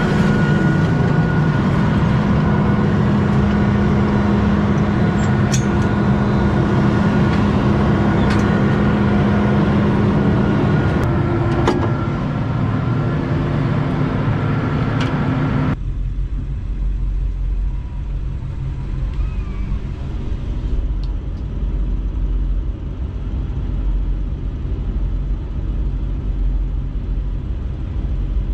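Heavy engine-driven machinery running steadily, a loud dense noise with a steady hum and whine and a few sharp ticks. About halfway through it switches abruptly to a lower, muffled engine rumble.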